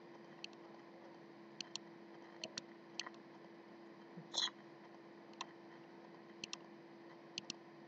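A computer mouse clicking several times, mostly in close pairs, over a steady low hum. About halfway through there is one brief, louder noise.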